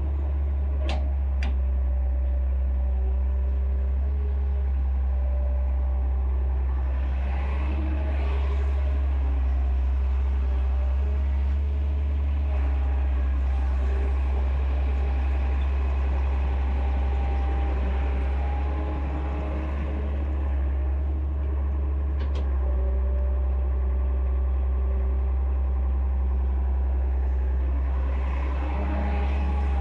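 Excavator engine running steadily with a deep, even drone, with a few short sharp clicks: two about a second in and one about two-thirds of the way through.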